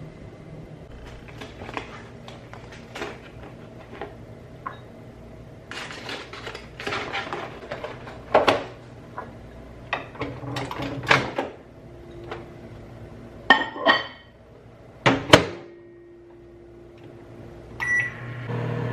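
Dishes and utensils being handled in a kitchen, with clinks and clatter and a few sharper knocks in the second half, over the steady low hum of a microwave oven warming food.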